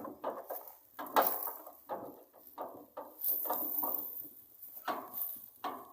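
Irregular metallic clanks and knocks, several a second at uneven intervals, as metal parts and tools are handled during a wheel-hub repair.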